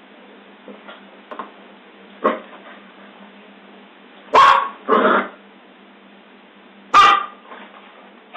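Scottish terrier barking in short single barks while playing: a softer bark about two seconds in, two loud barks close together about halfway, and another loud bark near the end.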